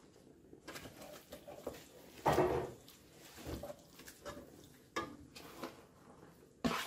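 Wooden spoon stirring zucchini noodles into thick tomato sauce in a pot, with a series of short soft scrapes and knocks against the pan; the loudest comes about two seconds in.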